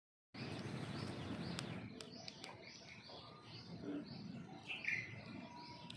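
Birds calling nearby: a steady run of short, high chirping notes, two or three a second, with a few faint clicks.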